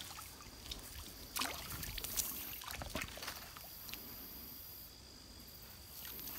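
Faint trickling and dripping of creek water just after a cast net has landed, with a few soft scattered ticks.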